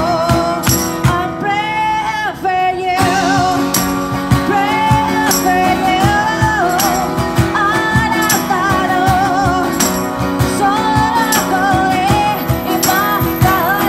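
Street buskers playing a song: a singer, amplified through a microphone, sings a melody with vibrato on the held notes over a strummed acoustic guitar. A tambourine and a cajon keep a steady beat.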